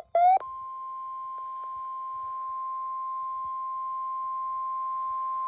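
NOAA Weather Radio 1050 Hz warning alarm tone: one steady, high pure beep held for several seconds and slowly getting louder. It is the signal that a warning is about to be read. A rising-and-falling sweep tone ends just before it starts, about half a second in.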